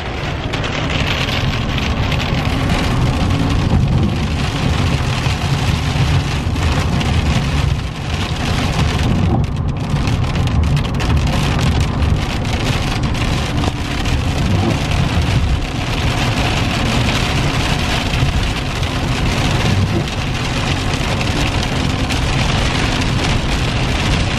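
Rain hitting the windshield and roof of a moving car, heard from inside the cabin, over a steady low road rumble.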